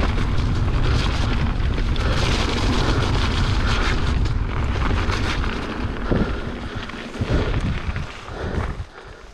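Wind buffeting the microphone of a camera riding on a mountain bike going down a trail: a loud, steady rush with low rumble, easing off over the last three seconds.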